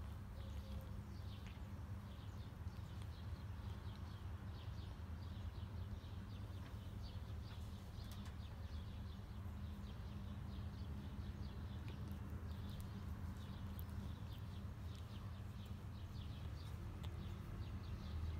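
Cat purring steadily and low, with soft clicks of a tongue licking fur as the mother cat grooms her kitten.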